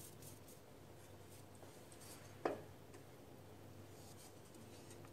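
Faint scraping of a wooden spoon stirring soup in a stainless steel pot, with one sharp knock about halfway through.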